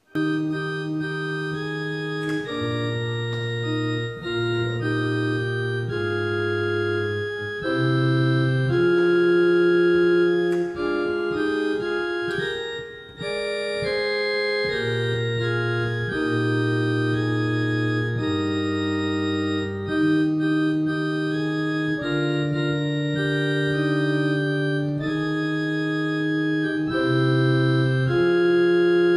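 Organ playing a hymn from the New Apostolic Church hymnal: slow, sustained chords that change every second or two, starting suddenly.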